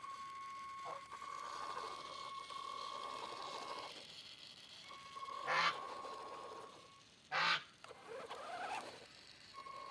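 Electric motor and gearbox of an RC crawler car whining at a steady pitch in stretches, stopping and starting again, with a brief rising whine just after the eighth second. Two short, loud noises break in, about five and a half seconds in and again about two seconds later.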